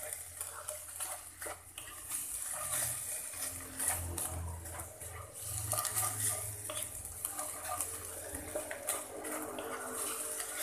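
Wooden spatula scraping and stirring minced chicken breast around a nonstick frying pan, with a steady sizzle from the meat frying in oil as it cooks down nearly dry.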